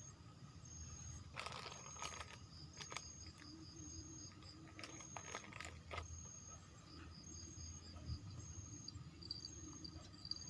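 Insects chirping: a steady, rapid high trill with a shorter high chirp repeating about once a second above it. Now and then there are a few soft clicks and rustles.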